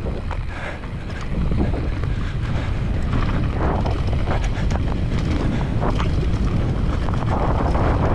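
Wind buffeting the microphone as a mountain bike rolls fast downhill over grass and dirt, with a steady low rumble from the tyres and scattered small rattles and knocks from the bike.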